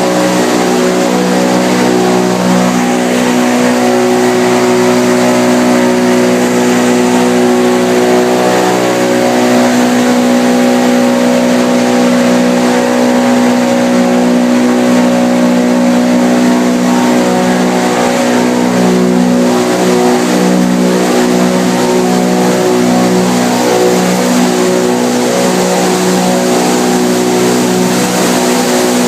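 PET bottle washing line running: a steady machine hum made of several pitches, with a hiss of noise over it.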